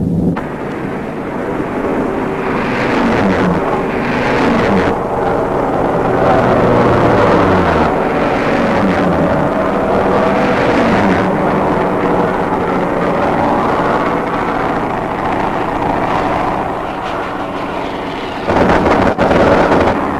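Propeller fighter-plane engines on a 1940s film soundtrack, droning with the pitch sliding up and down as the planes dive and pass. A louder, harsher burst comes near the end.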